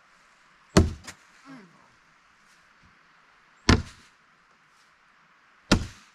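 Cornhole bean bags landing on the board: three sharp thuds a couple of seconds apart, the first followed quickly by a smaller second knock.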